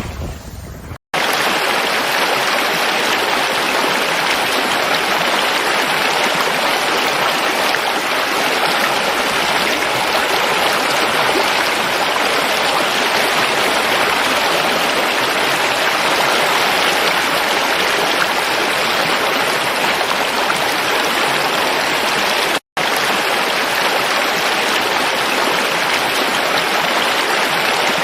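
Steady rushing water of a stream, an even, loud flowing noise. It breaks off for an instant about a second in and again near the end, where the clip changes.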